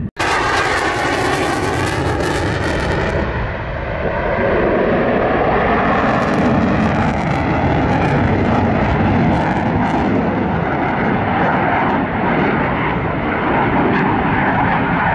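Loud jet noise from a twin-engine fighter jet flying a display pass overhead. A hissing top to the noise fades after about three seconds, and the noise grows louder about four seconds in and then holds steady.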